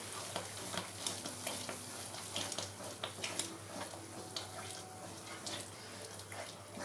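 Masala gravy with freshly added yogurt sizzling gently in a nonstick kadai while a spatula stirs and scrapes through it, with irregular small pops and crackles. The yogurt has just gone in and is kept moving so it does not curdle. A low steady hum sits underneath.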